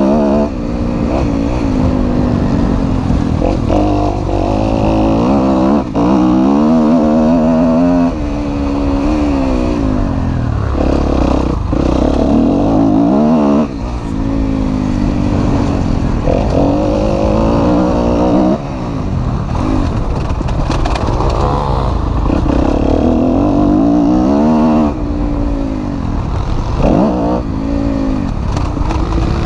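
Kawasaki KX250F motocross bike's four-stroke single-cylinder engine revving hard, its pitch climbing through each gear and falling off sharply every few seconds as the rider shifts and backs off the throttle, heard loud from on the bike.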